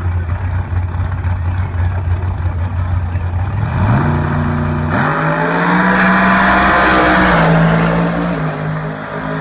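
Nitrous-injected big-block Chevy Nova drag car idling low at the starting line. Its revs rise just before four seconds in, and at about five seconds it launches at full throttle, the loudest part. The pitch then drops in steps as the car pulls away down the track.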